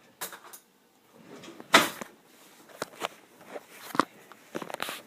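A spoon being fetched in a kitchen: a few separate sharp knocks and clinks, the loudest just under two seconds in, then a quick cluster of small clicks near the end.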